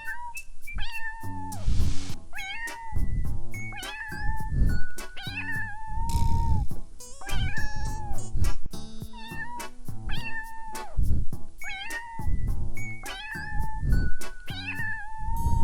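Domestic cat meowing over and over, a short gliding call roughly once a second, over background music with a steady beat.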